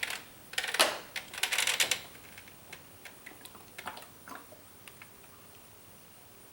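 Rapid crackling clicks from a plastic quart oil bottle being handled as engine oil is poured, in two short clusters over about the first two seconds, then a few scattered light ticks.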